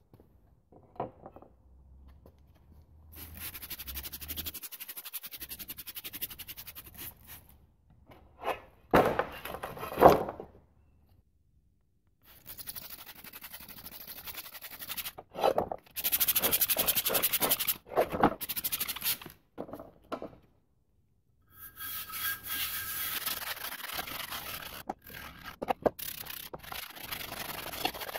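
Stiff brushes scrubbing a rusty steel wheel, in spells of rapid back-and-forth strokes with short pauses between. Two loud knocks come about nine and ten seconds in.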